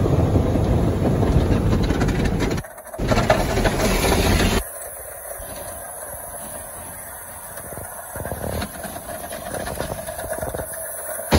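Automatic car wash heard from inside the car: a loud rush of water spray and cloth brushes against the body for the first few seconds, with a short break, then a quieter steady rumble of the wash machinery.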